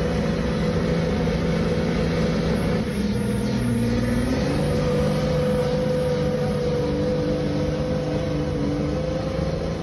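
Diesel engine of a tanker truck running under load as the truck labours in deep mud on a dirt road. The engine note shifts and steps up slightly about four seconds in.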